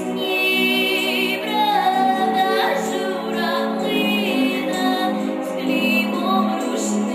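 A girl's solo voice singing a Ukrainian song in long, held notes with vibrato, over instrumental accompaniment.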